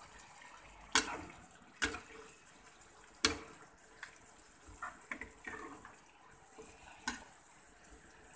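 A metal ladle stirring a simmering, sauce-filled stir-fry in a frying pan, with steady sizzling underneath. The ladle knocks sharply against the pan four times, and sauce is scooped up and poured back over the vegetables.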